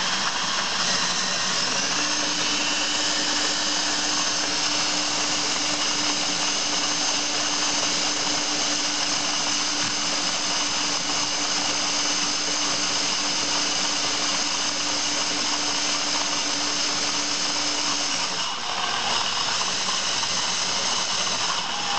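Variable-speed power drill spinning a Hario ceramic burr coffee grinder through a socket on its crank nut, grinding coffee beans: a steady whir of drill motor and burrs. The steady motor tone drops out a few seconds before the end, as the drill is eased off near the end of the grind.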